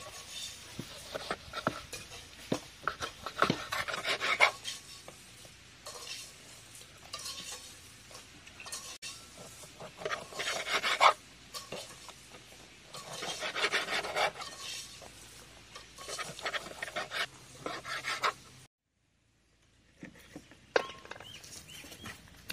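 Knife slicing raw lung on a wooden chopping board: repeated runs of cutting strokes with clicks and taps of the blade on the board, separated by short pauses. The sound breaks off near the end.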